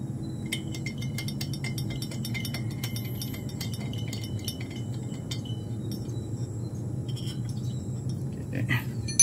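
Light metallic clinks and ticks as the cylinder-head nuts of a Yamaha RXK two-stroke engine are run down onto their studs by hand, over a low steady hum. A single sharp click comes near the end.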